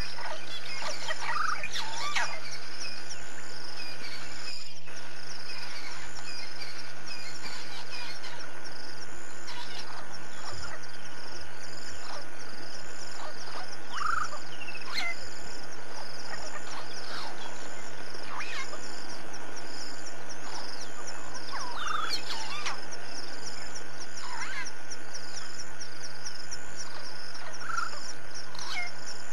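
Wild bush ambience of insects chirping in a fast, steady pulse high up, with a louder short call from a frog or bird several times, spaced seconds apart. A steady low hum runs underneath.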